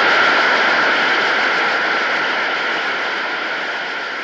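Congregation applauding, a dense even clatter of clapping that fades out gradually.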